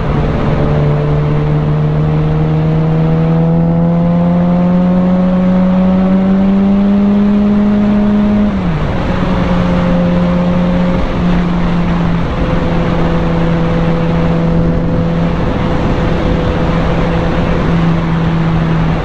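Sport bike engine pulling under way. Its pitch rises slowly for about eight seconds, then drops and holds steady, under a constant rush of wind and road noise.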